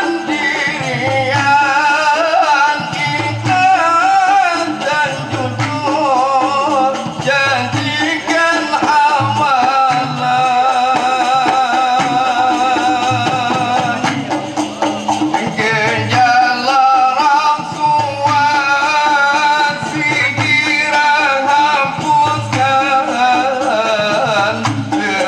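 Kelantanese dikir barat troupe singing to a steady low drum beat.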